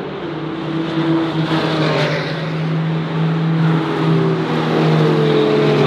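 Cars driving along a race-track straight, their engines running steadily. Road and engine noise swells as a car passes about two seconds in, and an engine tone slides slowly down in pitch near the end.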